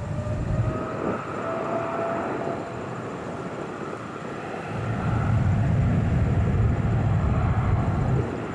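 Boeing 747-400's four jet engines at taxi power: a low rumble with a faint whine, the rumble growing louder about five seconds in.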